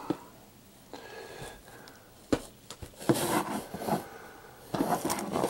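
Plastic DVD cases being handled: a few sharp clicks and knocks, then rubbing and rustling as the cases are moved about.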